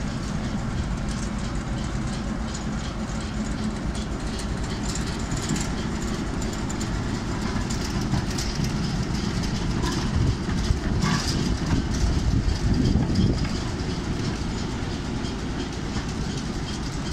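British Rail Class 08 diesel shunter's English Electric six-cylinder engine running as the locomotive moves slowly along the track, with a few clicks from the wheels on the rails. It grows louder about ten seconds in as the cab draws alongside.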